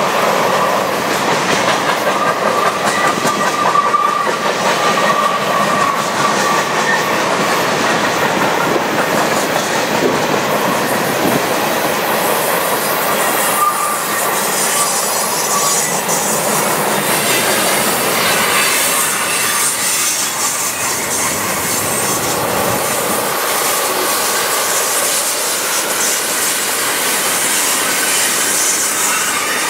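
Freight cars of a long train rolling past, their steel wheels clattering steadily over the rails. A high wheel squeal rings through the first several seconds and returns briefly around the middle.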